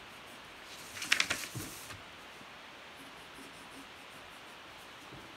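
Pencil scratching across paper in one quick burst of strokes, starting about a second in and lasting about a second, as a circle is drawn; faint steady hiss around it.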